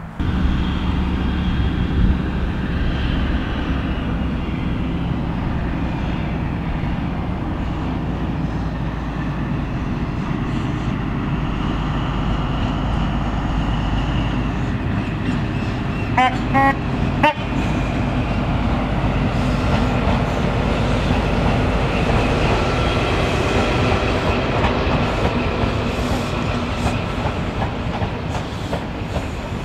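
HST (Class 43 power car) diesel engine running steadily as the train passes at speed, with the clatter of its wheels on the rails. A short horn toot sounds about sixteen seconds in.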